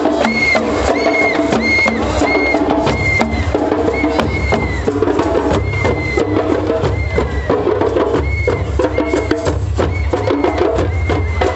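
Percussion-led music: drums and wood-block-like clicks keeping a steady beat, with a short high note repeated about twice a second.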